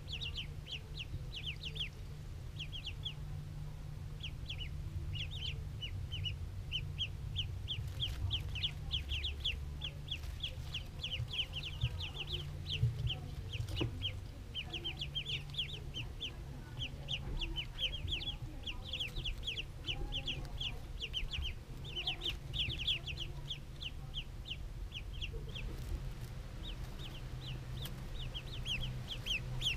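A brood of ducklings peeping continuously: short high-pitched peeps, several a second, over a steady low hum.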